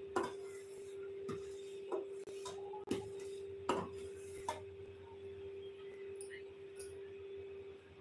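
Metal spatula stirring and scraping butter as it foams and cooks down into ghee in a stainless-steel pan, knocking against the pan about six times in the first half. A steady faint hum runs underneath.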